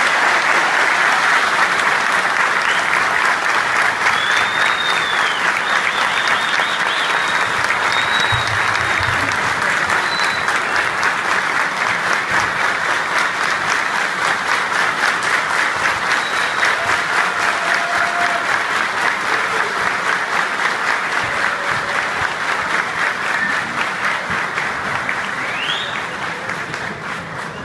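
A crowd applauding at length, a dense rapid clatter of many hands clapping, dying down near the end.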